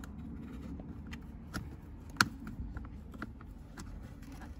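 Scattered light clicks and taps of plastic parts and wiring being handled as a car head-unit wiring connector is worked loose, with one sharp click about two seconds in.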